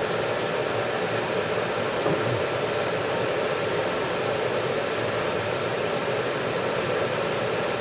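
Steady whirring of a Kent 10 hp CNC bed mill running, as its X-axis power table feed drives the table.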